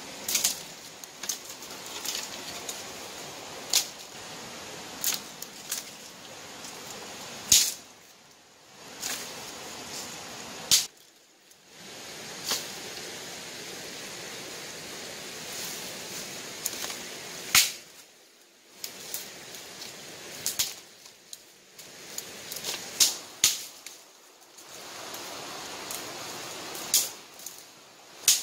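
Dry leaf litter crunching and rustling underfoot and under hands as a person moves through forest undergrowth, with several sharp snaps of dry twigs and sticks breaking.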